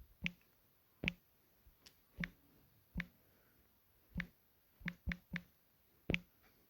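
A series of about nine light, sharp clicks at irregular intervals, three of them in quick succession midway: finger taps on a smartphone touchscreen.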